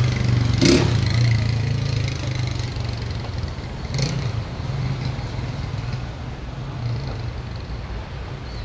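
Street traffic with a motor vehicle's engine running, a low hum that slowly fades, and two short sharp clicks, one just under a second in and one about four seconds in.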